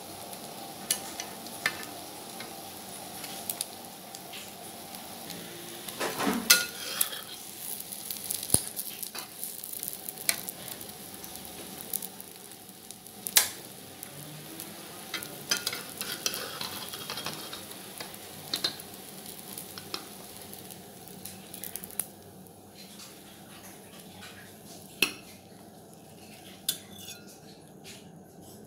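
An egg omelette sizzling in oil in a wok while a metal spatula scrapes and knocks against the pan, with sharp clicks scattered throughout. The sizzle thins out over the last few seconds.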